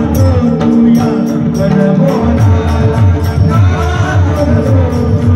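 Devotional kirtan music: small hand cymbals (taal) struck in a steady rhythm over a drum beat and a sustained drone.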